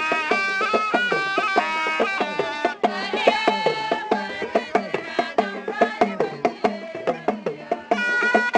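Background music: a busy drum rhythm under a melody line, with a brief break about three seconds in.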